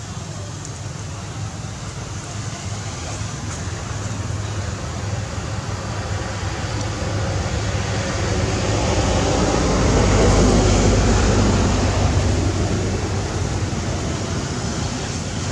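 Steady outdoor rumble and hiss that grows to its loudest about two-thirds of the way through, then eases off.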